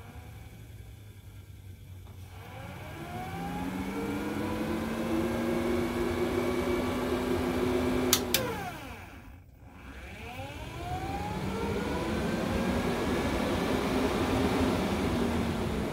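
Heng's Vortex RV roof vent fan spinning up, its hum rising in pitch to a steady run. About eight seconds in there is a click and the pitch falls as the fan winds down, then it spins back up to full speed.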